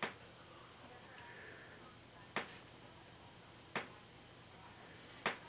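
A few faint, sharp clicks or taps, four of them spaced a second or more apart, over quiet room tone.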